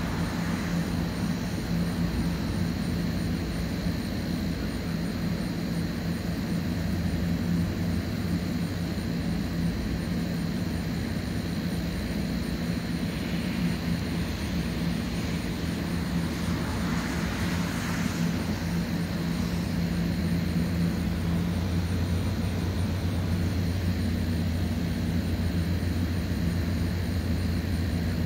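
Steady low engine drone with a faint steady high tone above it. The low hum strengthens a little past the middle.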